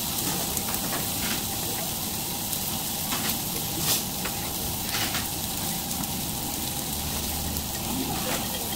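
Beef sirloin steaks searing in a cast-iron pan: a steady sizzle with scattered pops and crackles.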